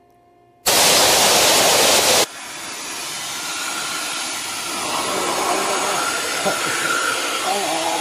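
Vacuum cleaner running with its nozzle held at a person's mouth. A loud hiss starts suddenly under a second in and cuts off after about a second and a half. A steady rushing noise follows and slowly grows louder, with wavering voice-like sounds over it near the end.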